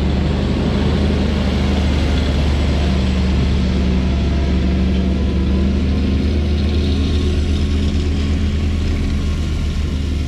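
Diesel engine of an International manure tank truck running steadily as it drives past while spreading manure.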